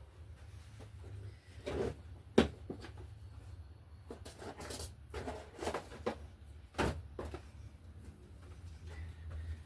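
Hands handling moss and craft materials on a work table: scattered light knocks and rustles, a few sharper taps among them, over a low steady hum.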